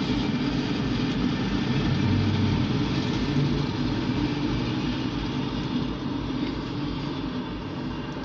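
Diesel switcher locomotive passing with its engine running in a steady rumble, heard from inside a car. It is loudest a few seconds in and eases off toward the end as the locomotive moves away.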